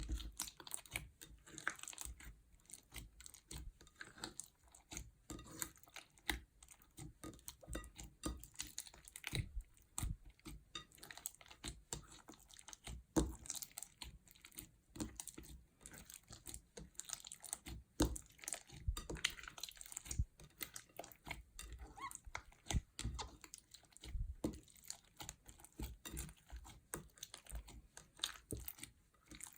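Slime being squished and mixed by hand, giving a steady stream of irregular sticky clicks and crackles.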